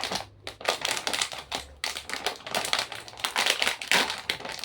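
Popcorn snack bag being handled and torn open: a continuous, irregular crinkling and crackling of the plastic packaging.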